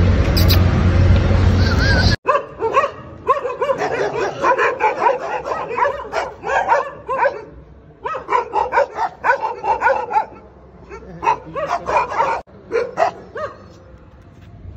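Several dogs barking and yipping in fast, overlapping runs, stray dogs squaring up to a pit bull. The first two seconds hold a loud steady noise before the barking starts abruptly.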